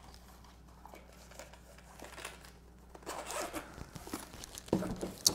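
Rustling as items are handled in a cardboard box, then the zipper of a hard sunglasses case, starting about three seconds in after a quiet stretch and ending with a sharp click.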